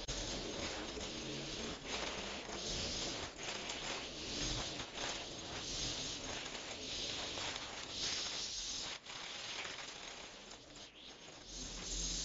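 String trimmer running, its nylon line cutting grass and weeds along the base of a timber fence, with a buzzing hiss that rises and falls as the head sweeps through the growth.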